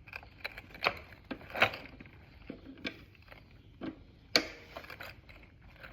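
Sharp clicks and knocks of a socket wrench being worked on a bolt of a three-wheeler's front wheel, irregular, about one a second.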